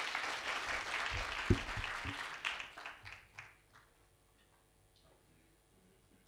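Audience applause that fades away after about three seconds, with one loud thump partway through, leaving faint room tone.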